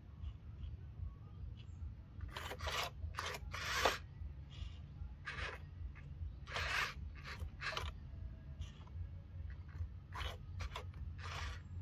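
Irregular short scraping strokes, about a dozen, each a fraction of a second long, over a steady low hum.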